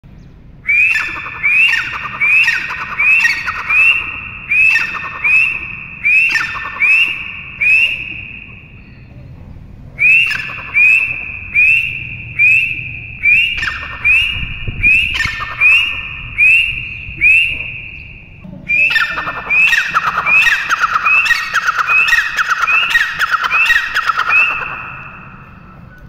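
Francolin (teetar) calling: loud, shrill notes repeated about twice a second, in three long bouts with short pauses between. In the last bout the notes come thicker and overlap.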